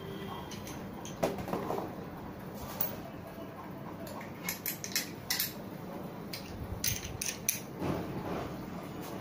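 Metal parts of an antique kerosene Stirling fan's stand clinking and clicking as they are handled and fitted together, with a cluster of sharp clicks between about four and eight seconds in.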